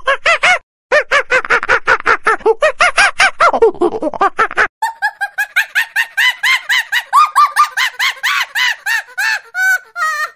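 A fast, even run of short squeaky honking calls, about six or seven a second, each rising and falling in pitch. It breaks off briefly just under a second in, and after a cut a little before halfway it carries on slightly higher.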